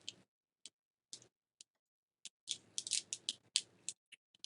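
Tangle fidget toy being twisted, its plastic segments clicking at the joints: a few scattered clicks, then a quick, irregular run of them about two and a half seconds in.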